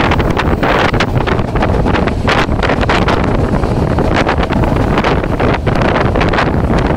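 Passenger train running at speed, heard from inside the carriage, with loud wind buffeting the microphone.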